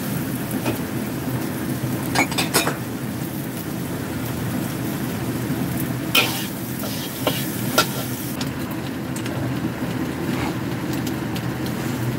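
Diced onion and scrambled egg sizzling in a wok, stirred with a metal spatula that scrapes and clinks against the pan about five times.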